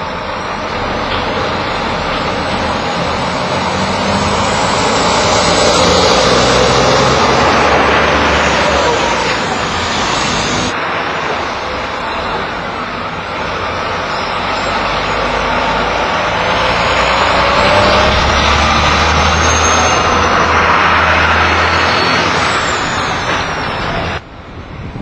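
Heavy tipper trucks towing trailers driving through a roundabout: loud, continuous engine and tyre noise with some rising and falling pitch. The sound changes abruptly a little before halfway and drops suddenly near the end.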